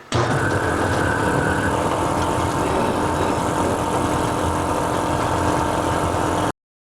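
Power saw in a machine shop running steadily, cutting out a metal workpiece; the sound starts suddenly and cuts off abruptly near the end.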